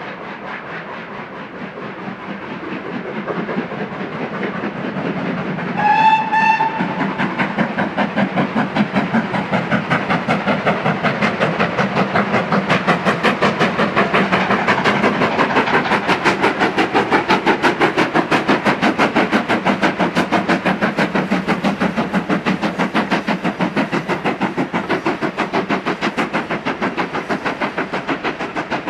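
GWR 4-6-0 steam locomotive working a passenger train past, its exhaust beating rapidly and evenly, growing louder as it approaches and easing a little near the end. One short whistle blast about six seconds in.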